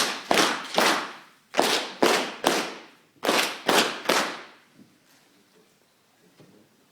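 A group of people clapping in unison in three sets of three claps, the last set ending a little over four seconds in: the Masonic grand honors given to a newly installed worshipful master.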